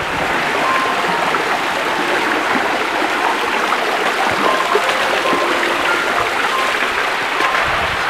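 Stream water running and splashing down rock cascades, close by and steady.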